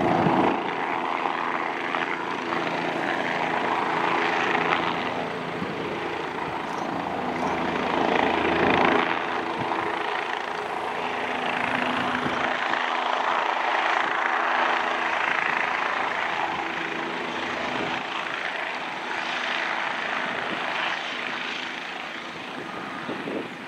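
Bell 407 helicopter hovering low, its single Rolls-Royce 250 turboshaft engine and four-blade main rotor running with a steady rushing whine over a low hum. It grows a little quieter near the end.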